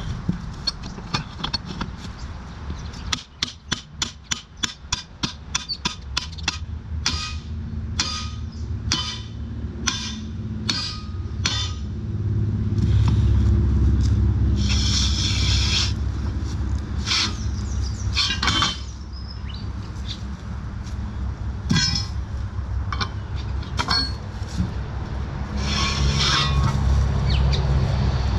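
Repeated hammer blows, about two a second and then roughly one a second, striking the boat's support stands and timber blocks for the first twelve seconds. After that come a few harsh scraping bursts over a low rumble.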